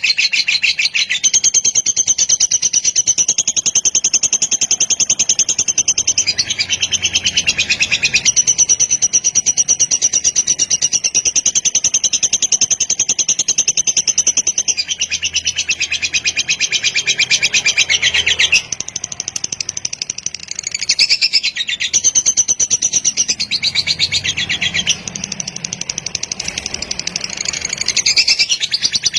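Lovebird singing a long, unbroken, fast chattering trill (the 'kekek panjang' of a fighter-type lovebird). It is high-pitched, and grows softer for a few seconds twice in the second half.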